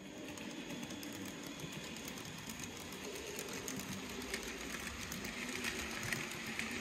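N gauge model Pendolino train running on the layout track: a steady motor whir with fine rapid clicking of the wheels on the rails, growing slightly louder about halfway through as it comes nearer.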